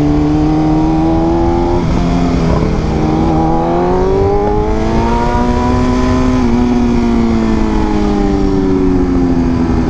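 BMW M1000RR's inline-four engine through a full titanium SC-Project exhaust, ridden under way with wind rush on the microphone. The revs climb, break briefly about two seconds in, then climb steadily for several seconds before falling away over the last few seconds as the throttle eases.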